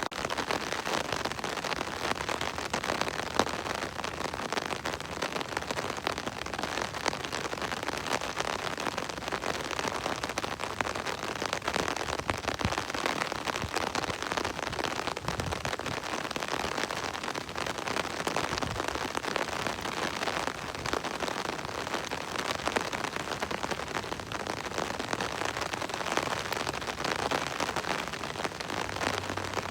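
Steady rain falling on a surface, an even hiss dense with small drop ticks and no let-up.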